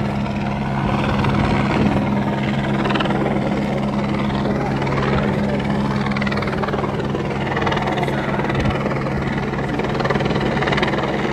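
A steady engine drone with two unchanging low hum tones, under the chatter of a crowd.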